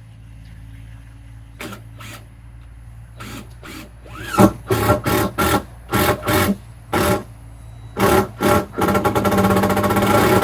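Cordless power drill run in a string of short trigger bursts, then held for a longer run near the end.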